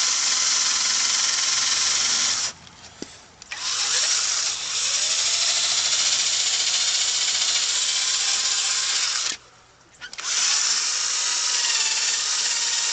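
Electric drill spinning a buffing pad against a plastic headlight lens, in three runs with short pauses between them, its pitch shifting as the speed changes. This is the polishing step of restoring a foggy, sanded headlight.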